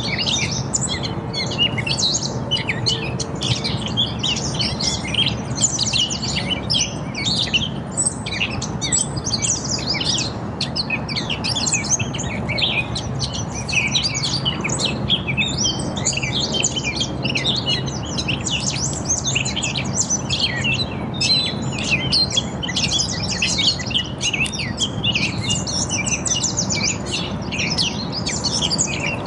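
A dense chorus of many songbirds chirping and singing over one another without a break, with a low steady rumble underneath.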